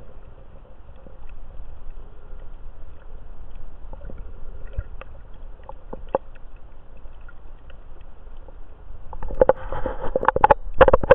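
Muffled underwater noise picked up through a camera's waterproof housing: a low rush of moving water with scattered small clicks, then a cluster of louder knocks and rattles in the last two seconds.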